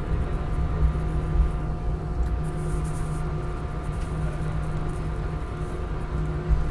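Inside the cabin of an Airbus A319 taxiing: the engines at taxi power give a steady low rumble with a steady whine over it, and a few low bumps come through from the rolling airframe.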